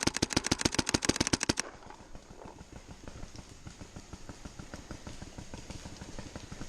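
Mechanical paintball markers firing: a fast, loud string of shots stops about a second and a half in. Fainter, more distant shots keep popping after that.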